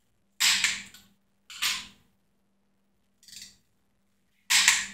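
Ratcheting torque wrench on cylinder head bolts being tightened to 55 ft-lbs: four short bursts of ratchet clicking, the first and last loudest.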